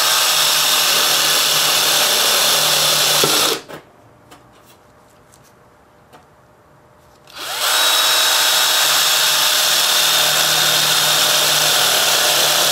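Electric drill cutting holes through sheet-steel floor pan with a Greenlee step bit (Unibit). It runs steadily in two spells, stopping about three and a half seconds in and starting again about four seconds later.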